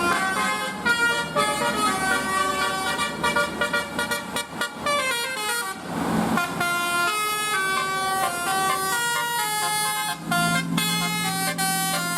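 Indonesian bus 'telolet' multi-tone air horns playing quick melodic tunes, one note jumping to the next. There is a short rush of noise about six seconds in, and a lower horn note is held around ten seconds.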